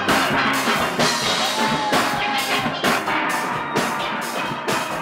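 Steel band playing: many steel pans struck with sticks in a ringing, fast-moving melody over a steady drum beat.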